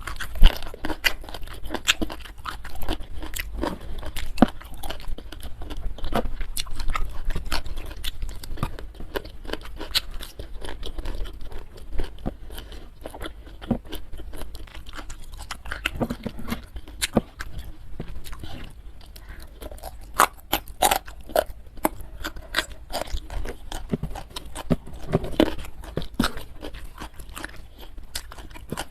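Close-miked chewing and crunching of food, with a dense run of irregular crisp crackles and wet mouth sounds.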